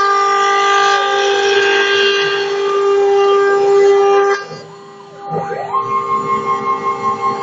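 Homemade CNC machine running, its stepper motors whining at steady pitches. About four seconds in the whine cuts off, then sweeps down and back up as the axes slow and speed up, and settles on a higher steady tone that pulses several times a second.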